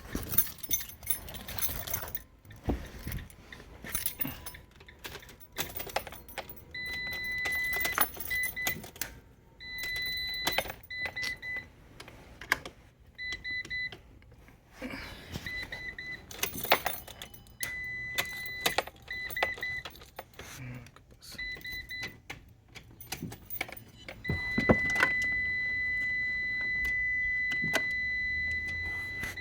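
Keys jangling with sharp clicks, while a high electronic beep sounds in short on-off stretches from about seven seconds in, then holds as one steady tone from about twenty-four seconds in.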